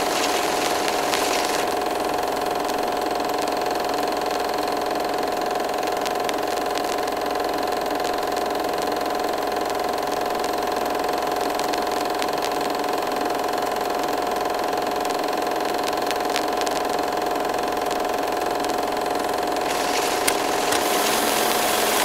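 35mm film projector running: a steady mechanical whirr with a constant hum and light clicking from the film transport.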